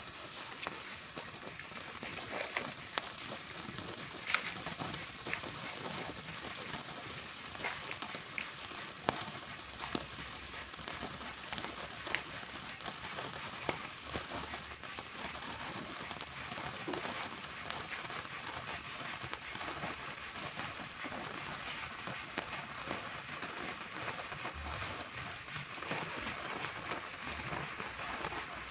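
A lit fuse burning slowly at the end of a row of firecrackers: a steady fizzing hiss with scattered small crackles and ticks, and no firecracker going off yet.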